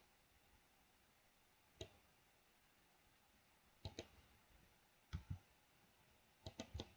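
Faint, scattered clicks of a computer mouse and keyboard, about ten in all: single clicks, pairs around four and five seconds in, and a quick cluster near the end.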